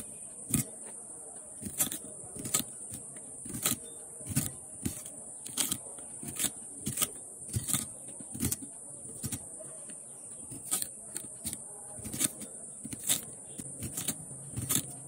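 Crisp, irregular cutting clicks, under two a second, as green hog plums are sliced and peeled against the iron blade of a boti, over a steady high-pitched whine.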